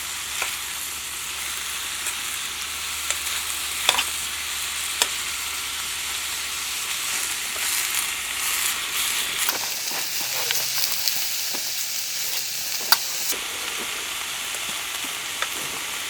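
Food sizzling and frying in a pan, a steady hiss broken by a few sharp clicks of a utensil against the pan.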